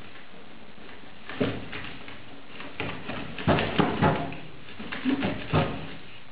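Wood fire crackling in a fireplace, close up: a steady low hiss with sharp pops, one about a second in, a quick cluster of loud cracks in the middle, and two more near the end.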